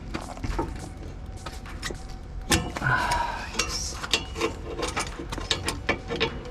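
Locking pliers clicking and clanking against a metal exhaust hanger while working a rubber exhaust bushing loose. Irregular metal clicks and knocks, with one louder clank about two and a half seconds in that rings briefly.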